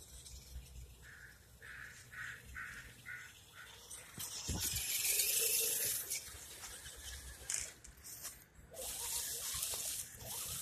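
Dry fallen leaves crunching and rustling as an RC crawler and the person following it move through a thick leaf bed, loudest in a long stretch about four seconds in and again near the end.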